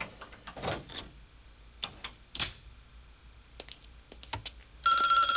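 Door knob and lock turned and the door pushed open: a handful of scattered clicks and knocks. About five seconds in, a telephone starts ringing, the loudest sound.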